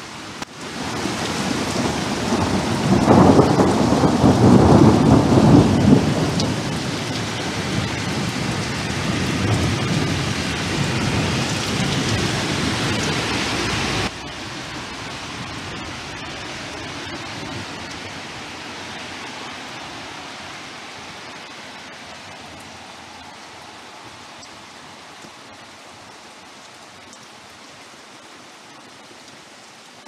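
A long rolling rumble of thunder over heavy rain, loudest a few seconds in. About halfway through it cuts off suddenly, leaving a steady hiss of rain that slowly fades.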